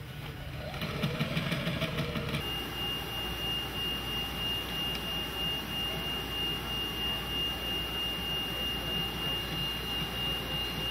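A sewing machine stitches through vinyl and canvas for about two seconds. Then a steady high-pitched whine over a low hum takes over: the motors of a sail-cutting plotter running in the background.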